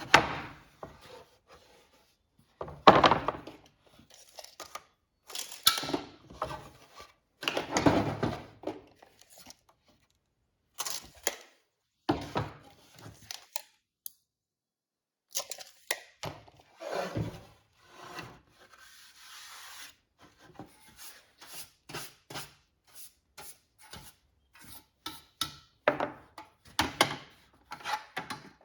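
Wood being worked and handled by hand: irregular scraping and rubbing strokes mixed with knocks and clicks of wooden pieces, with a short pause partway through.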